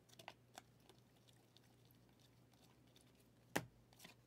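Glossy Mosaic football trading cards being flipped one at a time in the hand: a few light clicks of card against card, the sharpest about three and a half seconds in.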